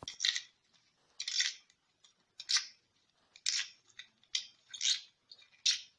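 Tough outer leaves being snapped off a raw artichoke by hand: about seven short, sharp snaps, roughly one a second.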